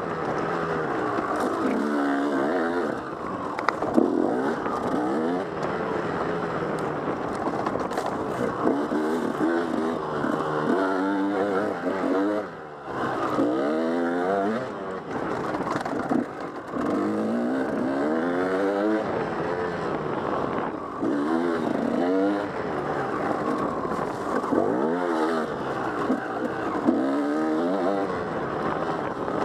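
Enduro dirt bike engine under way on a rough trail, its pitch rising and falling again and again as the throttle is worked, with a brief drop about halfway through where the throttle is shut.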